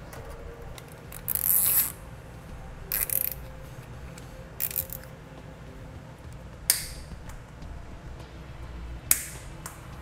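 Nylon zip ties being pulled tight around a bundled trailer-wiring harness: about five short ratcheting rasps, the last two sharper snaps. A faint low hum runs underneath.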